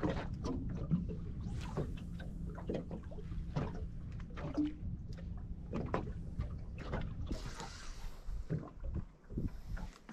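Small waves lapping and slapping irregularly against the hull of a drifting boat, over a low steady hum. A brief hiss comes in about three quarters of the way through.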